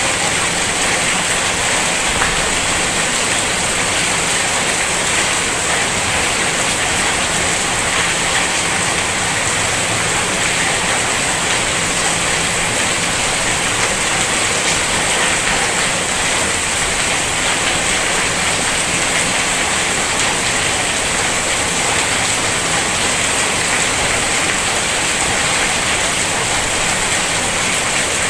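Heavy rain falling steadily: a dense, even hiss of water that does not let up.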